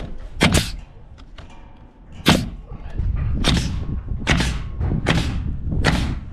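Senco coil nailer firing nails into the OSB skin of a roof panel: six sharp shots, two spaced about two seconds apart, then a steady run of about one every 0.8 seconds.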